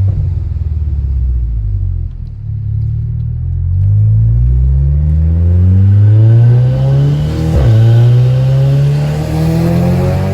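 Turbocharged Audi S3 engine, fitted with a hybrid ball-bearing turbo, accelerating hard with the revs climbing steadily. About three-quarters of the way through, the pitch drops sharply at an upshift, then climbs again in the next gear.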